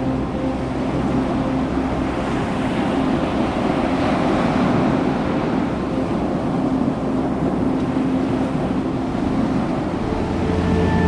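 Ocean surf with wind on the microphone: a steady wash of waves that swells about halfway through.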